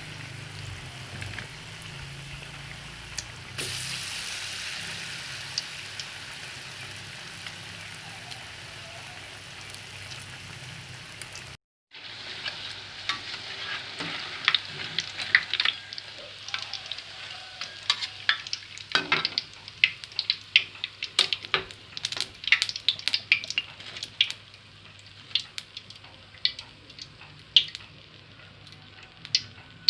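Flour-battered broccoli frying in hot oil: a steady sizzle. After a brief break about twelve seconds in, the sizzle is quieter and broken by many sharp clicks and crackles.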